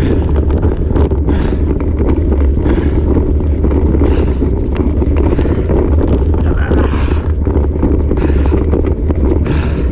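Wind buffeting the microphone of a camera on a moving bicycle, a steady deep rumble, over the noise of the tyres rolling on a dirt and leaf-litter trail. Faint brief rustles recur about every second.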